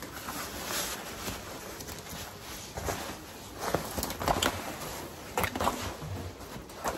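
Fabric of a Moose Knuckles down-filled winter coat rustling as it is handled, in short irregular rustles with a few louder ones partway through.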